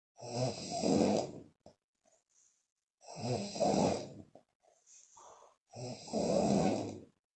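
A woman snoring loudly in her sleep: three long snores, one about every three seconds, with soft puffs of breath through the lips between them.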